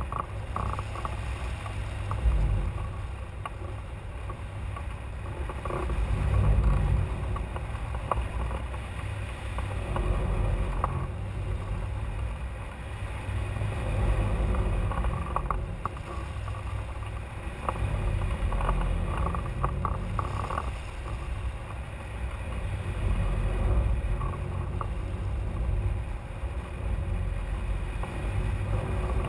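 Rushing airflow buffeting the microphone of a camera mounted on a hang glider in flight: a rumbling wind noise that swells and eases every few seconds, with scattered light clicks and rattles.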